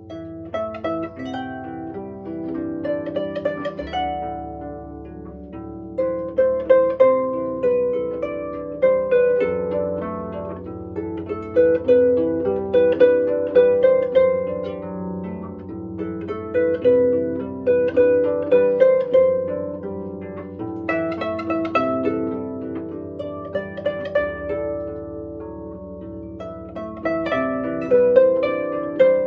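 Solo Pilgrim harp played by hand: a flowing stream of plucked, ringing notes over low sustained bass notes, swelling and easing in phrases every few seconds.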